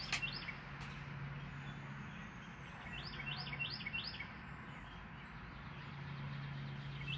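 Small birds chirping in quick runs of several short, high notes, a few runs in a row, over a steady low hum.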